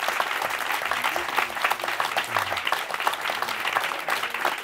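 Audience applauding: many hands clapping at once in a dense, steady patter, thanking the speaker at the end of the talk.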